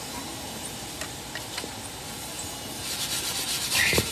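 Rubbing and scraping strokes, which grow into a run of loud, rasping strokes about three seconds in.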